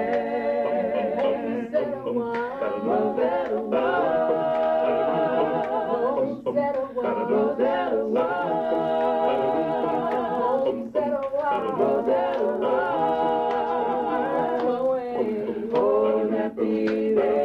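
A small group of people singing a cappella together, voices without instruments, in phrases with a few brief breaks.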